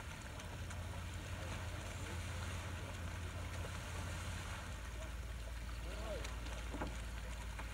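Small motorboat's engine running with a steady low hum as the boat approaches, its note dropping lower about two-thirds of the way through, as if throttled back. Faint distant voices come through a couple of times near the end.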